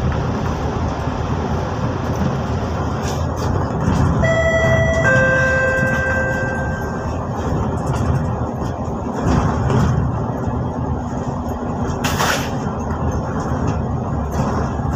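Steady engine and road rumble inside a moving bus, heard from the upper deck. A two-note falling chime sounds about four seconds in, and a short hiss about twelve seconds in.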